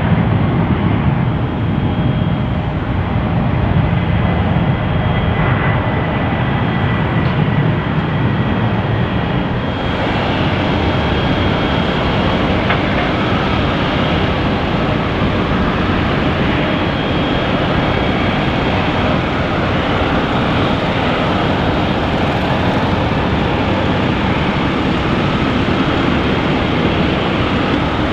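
Jet airliner engines running: a loud, steady rush with thin high whine tones over it. The sound shifts abruptly about ten seconds in, becoming brighter.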